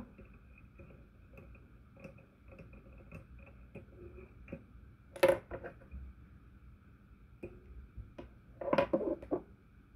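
Small clicks and clinks of fly-tying tools being handled at the vise, with a sharp click about five seconds in and a short cluster of louder knocks near the end.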